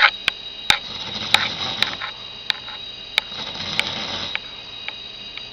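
A drunk man snoring in his sleep, a snore likened to a tractor, with two longer swells of breath noise and irregular sharp clicks scattered through.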